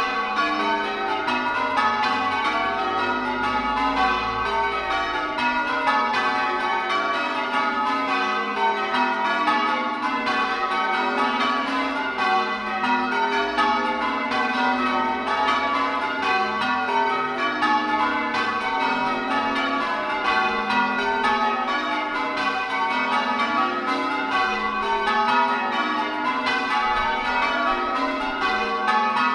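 A ring of eight church bells, tenor about 12 cwt in F sharp, rung full circle by hand. The strikes come in a continuous even stream, each bell sounding in turn with the tones overlapping.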